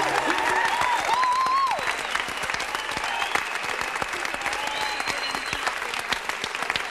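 Concert audience applauding, dense clapping with a few shouts over it in the first couple of seconds.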